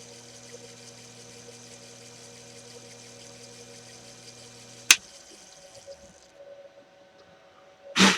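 Small metal lathe running steadily with a hum under power feed, then switched off with a sharp click about five seconds in, after which the hum stops. A short loud knock comes near the end.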